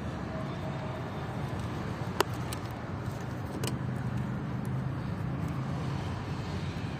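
Steady low vehicle hum of a running motor, with a sharp click about two seconds in and a couple of fainter ticks after it.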